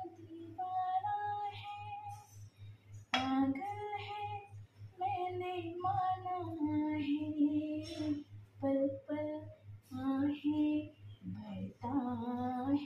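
A woman singing a Hindi song in long held notes, with a steady beat underneath.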